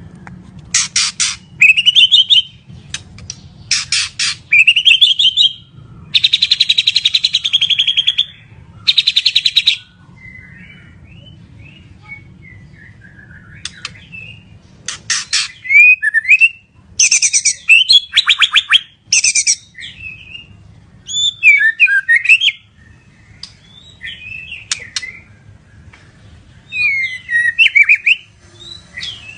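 White-rumped shama singing loudly in full song: rapid trains of sharp repeated notes and harsh buzzy trills alternating with slurred whistled phrases, with a softer spell about ten seconds in before the song picks up again.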